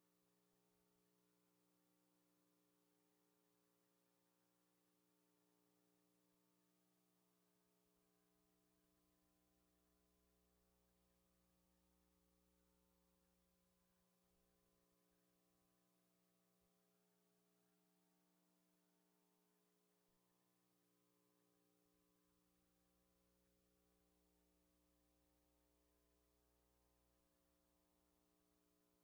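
Near silence, with only a very faint, steady electrical hum.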